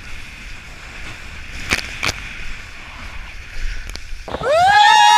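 Wind buffeting the action camera's microphone and water rushing under a kiteboard on choppy sea, with two sharp splashes about two seconds in. Near the end a much louder high pitched tone glides up and holds.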